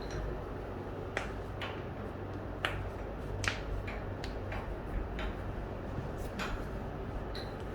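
About eight sharp, irregularly spaced cracks and pops from joints being manipulated during a chiropractic adjustment, over a steady low hum.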